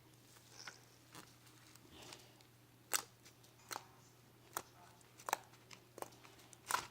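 Homemade slime being squished and pulled in the hands, giving faint sticky clicks and pops. They come about every 0.7 s in the second half.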